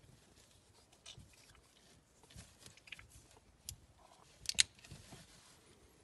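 Back-lock folding knife handled in the hand: a scatter of small metal clicks and scrapes, then a sharp double click about four and a half seconds in as the blade snaps shut into the handle.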